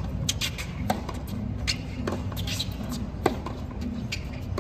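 Tennis rally heard from courtside: racket strings striking the ball about every 1.2 seconds, with lighter knocks between the hits, over a steady low stadium murmur.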